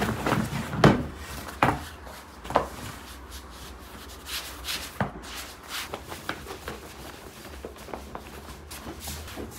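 Wooden rolling pin knocking and rolling on a wooden worktable while a large, thin sheet of samsa dough is wound onto it and spread out, with soft rubbing of dough and hands. A few sharp knocks come in the first three seconds and another about five seconds in, over a low steady hum.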